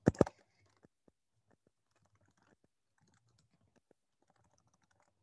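Two sharp clicks right at the start, then faint, quick tapping of a computer keyboard as a short message is typed.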